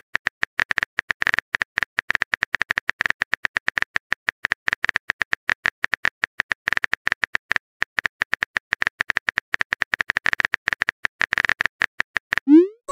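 Rapid, irregular keyboard tap clicks of a texting-story app's simulated phone typing, several per second. Near the end a short rising whoosh plays as a message is sent.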